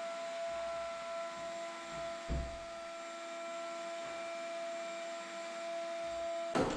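A small motor running with a steady whine, stopping suddenly near the end, with a light knock about two seconds in.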